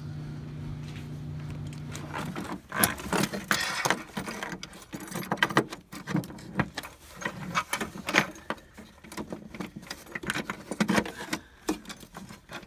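A steady low hum for about the first two seconds, then irregular metallic clicks, clinks and rattles as an LED light bar and its steel mounting brackets and bolts are handled and shifted into position behind a truck grille.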